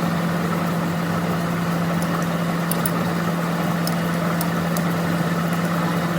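Steady machine hum, an engine or motor running at constant speed with an even tone, with a few faint light clicks over it.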